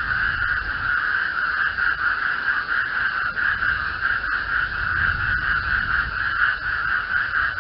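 A dense chorus of many frogs calling at once, forming a steady, unbroken wall of sound, with a low rumble underneath.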